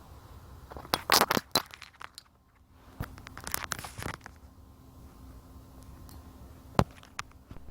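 Handling noise: two bursts of crinkly, crackling clatter, then a single sharp click near the end, over a faint steady hum.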